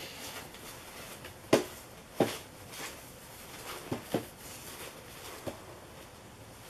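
A few light, sharp knocks at uneven intervals, from things being handled and set down on a table: one about a second and a half in, one at about two seconds, two close together around four seconds, and a softer one near five and a half seconds.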